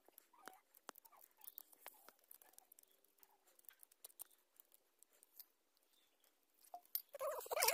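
Faint scratchy clicks of a stiff plastic brush scrubbing carbon dirt off a fouled spark plug. Near the end comes a louder burst of splashing as petrol is poured over the plug into a plastic basin.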